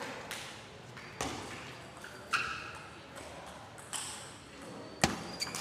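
Plastic table tennis ball clicking on the table and paddle. A few scattered light bounces come as the server gets ready, then a sharp, loud hit about five seconds in as the serve is struck.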